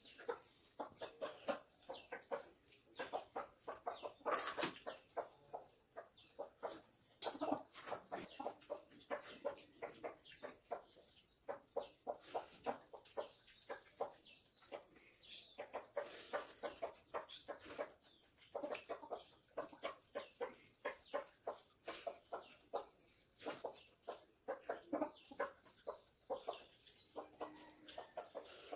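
Two people eating rice and egg bhurji by hand from steel plates: rapid, irregular chewing and lip-smacking, with fingers scooping and scraping the rice on the plates.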